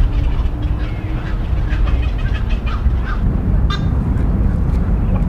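Water birds giving short, repeated calls over a loud, steady low rumble, with one sharp click a little over two-thirds of the way through.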